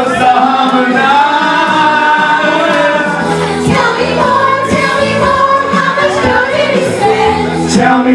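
Amateur singing through microphones, led by a woman's voice, with other voices and music behind it.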